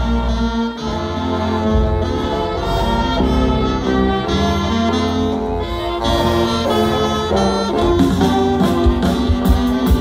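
Live youth funk big band playing: a saxophone, trombone and trumpet section playing over a strong bass.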